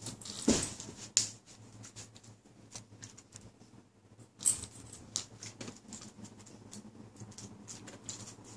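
German Shepherd moving about on carpet: light scratches and ticks from its paws, with louder rustles about half a second, just over a second and about four and a half seconds in.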